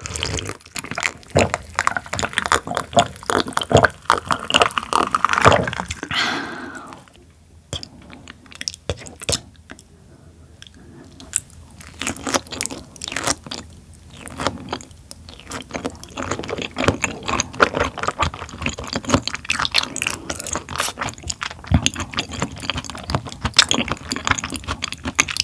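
Close-miked chewing and wet mouth sounds of someone eating raw tuna sashimi, with irregular small clicks and smacks.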